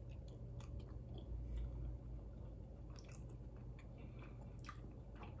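Faint mouth sounds of people eating spoonfuls of ice cream with cookie pieces: soft chewing with scattered small clicks, over a low steady hum.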